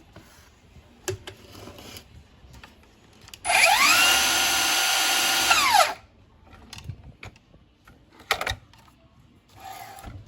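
Cordless slide miter saw's motor spinning up to a steady high whine, running for about two seconds, then winding down and stopping quickly. A few knocks and clicks come before and after the run.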